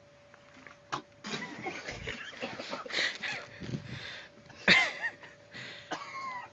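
Men's voices making short shouts and wordless vocal noises, with a sharp click about a second in and the loudest outburst about four and a half seconds in.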